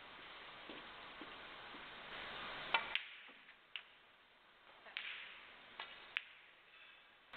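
Snooker cue and balls clicking during play: a sharp double click a little under three seconds in, then four more single clicks, as the cue tip strikes the cue ball and the balls knock together on the table.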